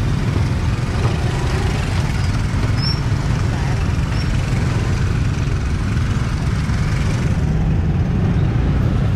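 Motor scooters and motorbikes running in slow, crowded street traffic, a steady low rumble with voices of people mixed in.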